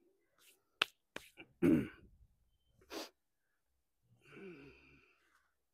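A couple of sharp snaps or clicks, then a man's short vocal sound falling in pitch, a brief burst of hiss, and a low wordless murmur from a man's voice near the end.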